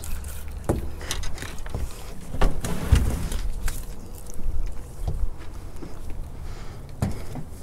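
Scattered knocks and thumps on a small fishing boat's deck and hull, the loudest a cluster about two and a half to three seconds in, over a low steady rumble.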